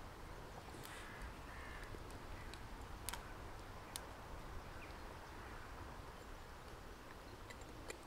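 A crow cawing twice, short calls just after a second in, over scattered sharp crackles from a small wood fire burning in a folding stove and a steady low rumble.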